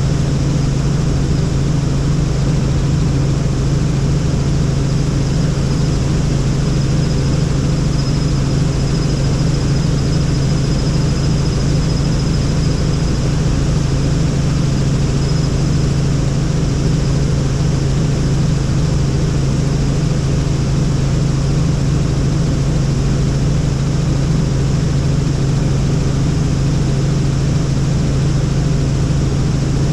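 Helicopter in flight: steady, unbroken engine and rotor drone, with a faint high whine in the first half.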